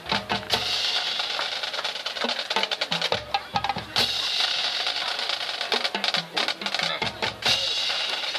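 Marching band drumline playing: rapid snare drum strokes and rolls with cymbal shimmer over recurring low bass drum hits.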